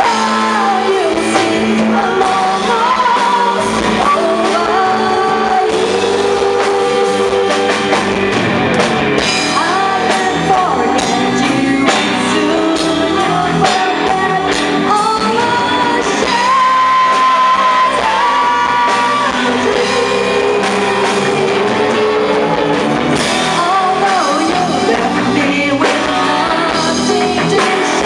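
Live band playing a song while a group of singers sing together into microphones, backed by electric guitar, bass guitar and drums, loud and continuous.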